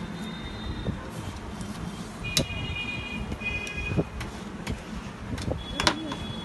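Sharp metal clicks and taps of a screwdriver working at the needle area of a sewing machine, three of them standing out, the last and loudest with a short ring. A steady low traffic rumble lies under them, with two brief high steady tones.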